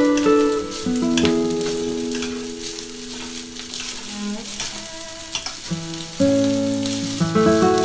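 Rice frying and sizzling in a stainless-steel pan while a spoon stirs it, with clicks of the spoon against the pan. Background music of held notes plays over it, deeper notes joining about six seconds in.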